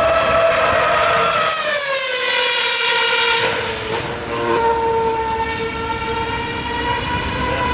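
A 2013 Formula One car's 2.4-litre V8 engine running at high revs: a high-pitched note that falls in pitch as the car passes close, about two seconds in, then holds steady.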